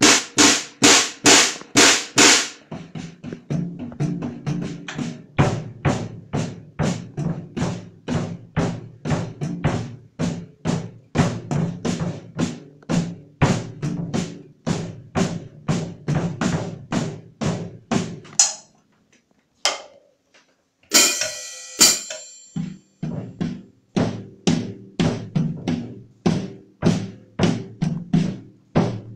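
A beginner plays an acoustic drum kit in a steady beat on snare and bass drum, opening with a few loud cymbal crashes. About two-thirds of the way through the beat stops briefly, a cymbal crash rings out, and the beat starts again.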